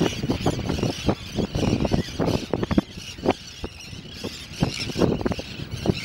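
A flock of terns calling, many high calls overlapping into a continuous chatter over a feeding frenzy. Wind buffets the microphone in irregular low gusts, easing off briefly about halfway through.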